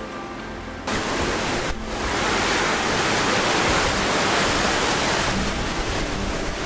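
Hurricane wind gusting with rain: a loud, steady rush that starts abruptly about a second in, after a short bit of music ends.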